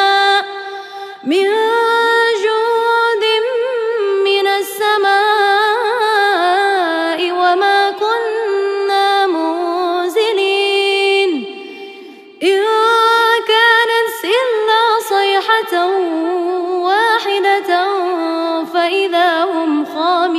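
A woman's voice reciting the Quran unaccompanied in a melodic tajweed style, with long held, ornamented notes. There are short breaths about a second in and again about twelve seconds in.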